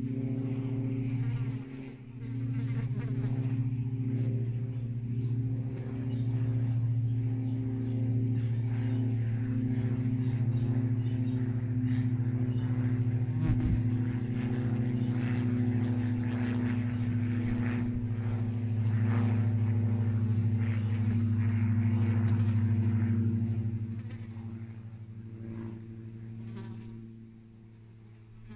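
A flying insect buzzing close by: a steady low hum that swells and dips, then weakens a few seconds before the end.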